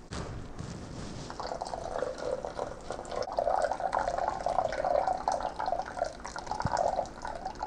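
Water poured in a thin stream onto wet coarse-ground coffee in a Toddy cold brew container, splashing and trickling steadily; it grows stronger about a second and a half in and eases near the end.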